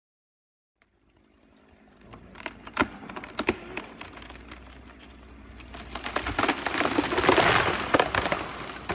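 A burnt tree coming down: a series of sharp wooden cracks and snaps, then a swelling rush of breaking branches and a crash that is loudest about seven to eight seconds in.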